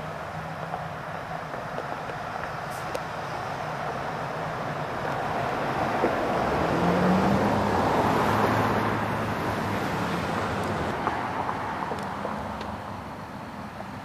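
A car driving past: road and tyre noise that swells to a peak about eight seconds in, then fades away over the next few seconds.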